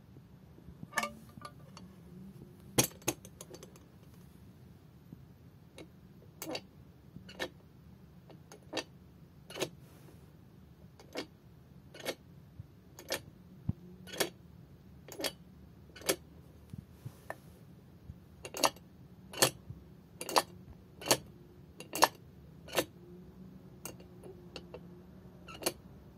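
The metal mechanism of a Jolly mechanical bank being worked over and over, giving sharp metallic clacks about once a second as the figure's arm lifts to its mouth and drops back.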